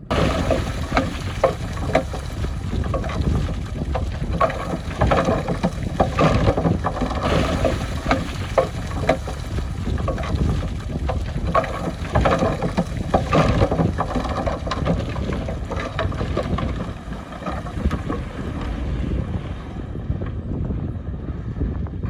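Heavy construction machinery working: a diesel engine's steady rumble with repeated metal clanks and knocks scattered through it, and wind on the microphone.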